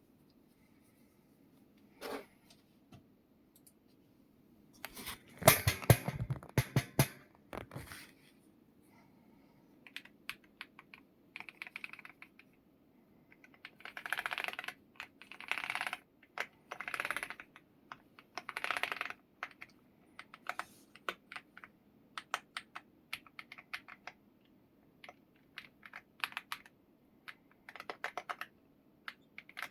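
MCHOSE G75 Pro mechanical keyboard being typed on: flurries of fast keystrokes with short pauses between them, the loudest and densest flurry about five to seven seconds in.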